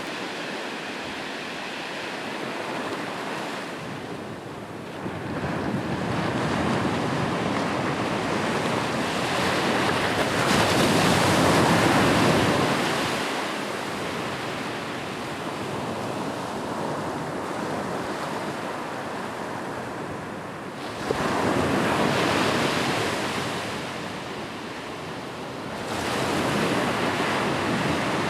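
Ocean waves breaking and washing up a beach, the surf swelling and easing in turn. The loudest wave comes about ten seconds in, with two more about 21 and 26 seconds in.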